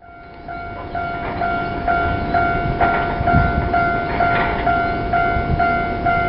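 A railway level-crossing alarm rings in even electronic dings, about two a second, over the low rumble of an approaching electric train that grows louder. The sound fades in at the start.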